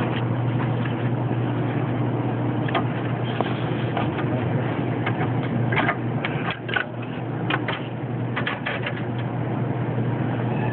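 Strap wrench being worked around a car's oil filter: scattered short clicks and taps over a steady low hum and background noise.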